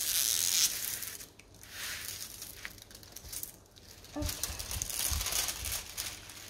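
Clear plastic protective film crinkling and rustling as it is laid back over a diamond-painting canvas and smoothed flat by hand, in three bouts, with a few soft low bumps of hands on the canvas about four seconds in.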